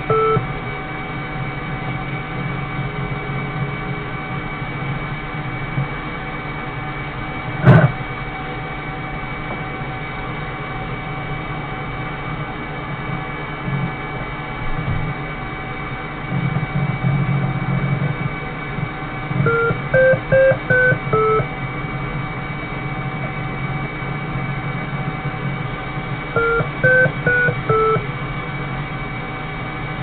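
A steady electrical hum made of several fixed tones. Twice it is broken by a short run of electronic beeps that steps up in pitch and then back down. A single sharp click comes about eight seconds in.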